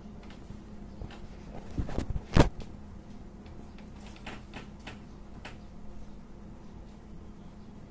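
A few sharp knocks and clicks over a low steady hum: a cluster about two seconds in, with one loud knock just before the middle, then several lighter clicks.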